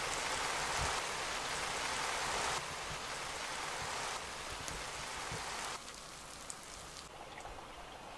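Water spraying from the shower head of a hand-pumped portable camping shower and falling inside a fabric privacy shower tent: a steady hiss of spray. It drops in sudden steps and is faint for the last couple of seconds.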